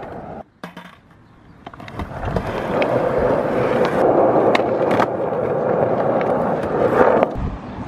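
Skateboard wheels rolling on a concrete footpath: a steady rumble that grows louder as the board approaches, with a few sharp clicks along the way. About seven seconds in the rumble drops off with a low thump.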